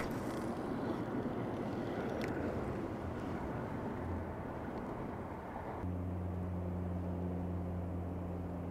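A broad low outdoor rumble, and from about six seconds in a steady low mechanical hum like a distant engine running.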